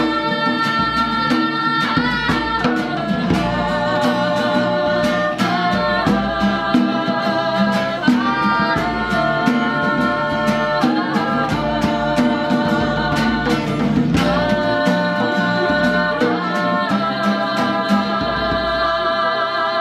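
A live band performing a song: sung vocals holding long notes over instrumental accompaniment with a steady beat.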